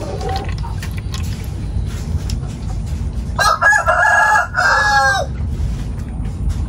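A rooster crowing once, a call of about two seconds starting some three and a half seconds in, with a short dip before its last part, over a steady low rumble.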